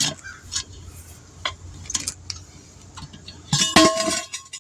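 Metal tire tools clinking and knocking against the wheel rim while a truck tire is worked off it. Near the end a loud, sustained squealing tone sets in.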